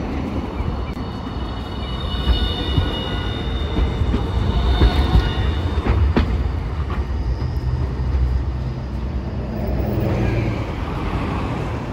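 Hiroden Green Mover LEX low-floor electric tram pulling away and passing close by, its wheels rumbling on the street track. A steady high whine runs through the first few seconds and a sharp click comes about six seconds in; near the end a low motor hum rises in pitch as the tram speeds up.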